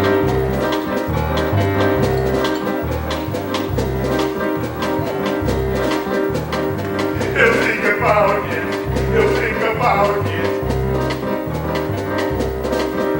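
Show music: an upbeat swing-style instrumental intro with a steady bass line, and a voice heard briefly about midway.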